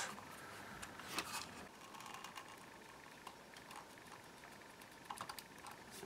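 Faint scattered clicks and light scrapes of a thin screwdriver working against a plastic foot-pedal casing, with a small cluster about a second in and a few more clicks near the end.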